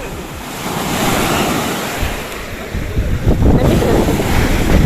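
Wind rushing across the microphone, buffeting it with a heavy low rumble from about three seconds in.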